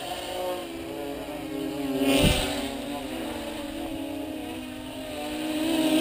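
Electric motors and propellers of an RC tricopter whining steadily, the pitch wavering up and down as the throttle changes. A short thump with a rush of noise comes about two seconds in, and the whine grows louder near the end as the craft comes close.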